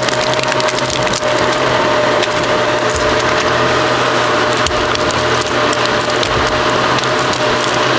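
Excavator-mounted log splitter forcing apart large timber: wood cracking and splintering over and over, over the steady hum of the machine running.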